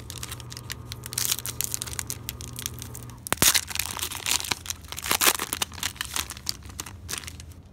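Foil wrapper of a Score football card pack crinkling and tearing as it is ripped open by hand, with sharper crackles about three and a half and five seconds in.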